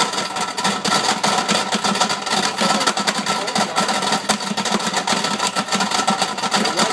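Commercial blender running at speed with 3/4-inch steel ball bearings in the jar: a dense, continuous rattle of the balls striking the jar and blade over the steady hum of the motor, heard through the blender's clear sound-enclosure hood.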